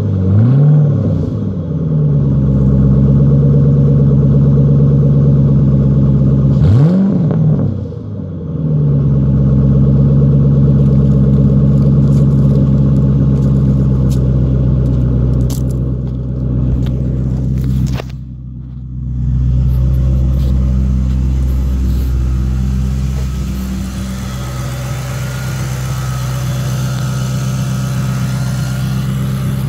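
2008 Mustang GT's 4.6-litre V8 idling through a Pypes Pype Bomb cat-back exhaust, revved briefly about a second in and again about seven seconds in, each rev rising and dropping quickly back to idle. From about two-thirds of the way through, the idle sounds quieter and changes as it is heard at the engine bay with its cold-air intake.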